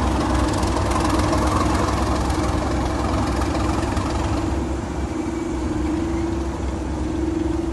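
Diesel locomotive engine idling with a steady low rumble and a constant hum; a hiss in the upper range fades about four and a half seconds in.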